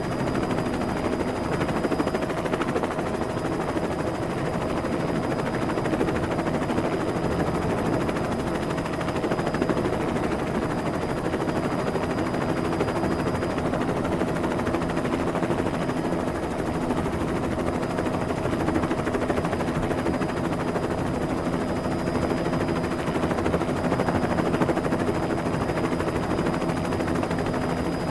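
Helicopter sound effect: a steady, rapid chopping of rotor blades over a constant engine hum, even in level throughout.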